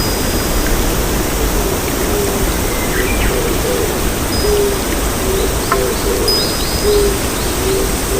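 Steady rushing water with birds calling over it. The calls are short high whistled notes and a run of short, low, hoot-like notes repeating about every half second.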